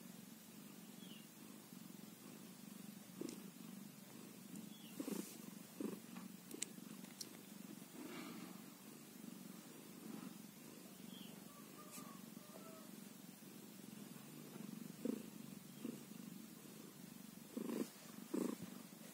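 Mother cat purring steadily and softly while nursing her newborn kittens, with a few brief soft bumps, the strongest two near the end.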